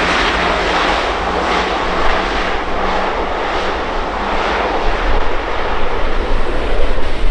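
Jet engine noise from a Cathay Pacific Airbus A350-941's Rolls-Royce Trent XWB turbofans: a loud, steady rushing roar. A choppier low rumble grows louder from about five seconds in.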